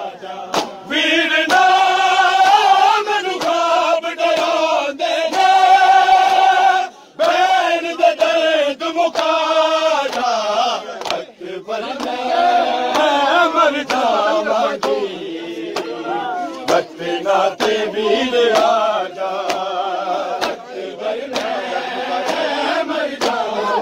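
A crowd of men chanting a mourning lament (noha) together, with sharp slaps of hands striking chests in matam through the chant.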